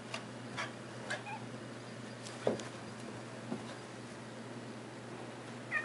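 A Scottish terrier and a cat scuffling on carpeted stairs: a few soft taps and thumps, the loudest about two and a half seconds in, and a short falling squeak near the end.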